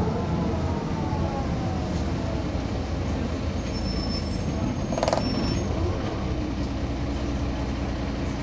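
Mercedes-Benz O405GN articulated city bus running with a steady low rumble, and a whine falling in pitch over the first few seconds. About five seconds in there is a brief sharp sound.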